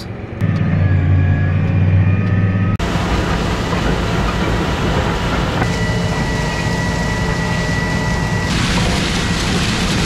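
A tractor engine runs steadily, then about three seconds in the sound switches to the louder, rough rushing and rattling of a Mandako Storm vertical tillage tool working through dry corn stalk residue, with the engine under it. A thin high whine sounds for about three seconds midway.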